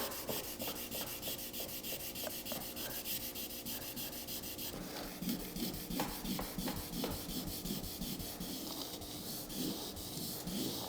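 A synthetic clay mitt rubbed back and forth over soapy, wet truck paint to pull off tar and bonded contamination. The strokes grow stronger about halfway through.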